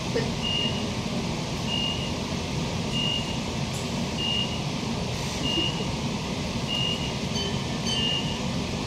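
Queensland Rail IMU 160 series train's door beeper, one short high beep about every 1.2 seconds, the signal sounded while the doors stand open at a station. Under it runs the steady hum of the carriage's equipment. Near the end a different chime sounds twice.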